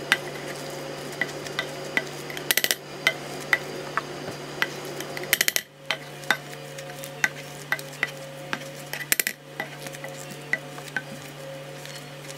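Boiled potatoes being mashed with a plastic potato masher in a nonstick saucepan: repeated soft squishes and small clicks as the masher presses down and taps the pan, with three louder, harsher strokes spread through. A steady low hum sits underneath.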